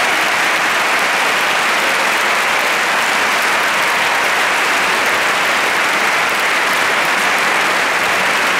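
Crowd applauding steadily, a dense, even clapping that holds at one level throughout.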